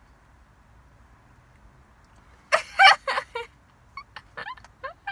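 A person's voice: a loud, sudden vocal burst about halfway through, followed by a string of short, high, squeaky yelps.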